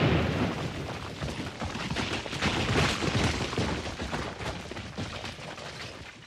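Tail of a quarry blast: rock and debris falling back down in a dense clatter of impacts over a fading rumble. The clatter swells again about two and a half seconds in, then dies away near the end.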